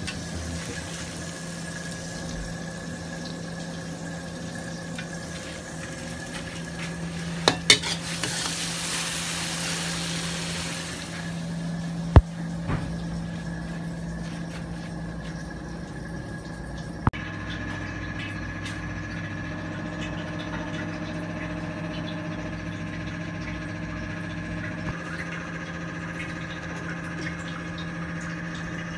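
Food frying in a wok, stirred with a utensil that knocks against the pan a few times. About eight seconds in, a louder hissing sizzle lasts some three seconds. A steady hum runs underneath.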